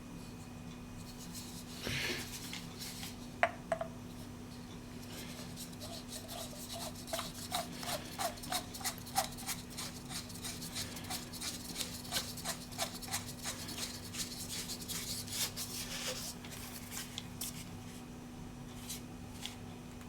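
Hands handling the packaging during an unboxing, with rubbing and a long run of short scrapes and crackles, busiest between about six and sixteen seconds in. A low steady hum sits underneath.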